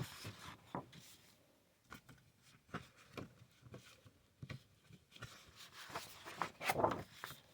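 Sheets of scrapbook paper being handled and shuffled: soft, scattered rustles and light taps, a little louder about six and a half seconds in.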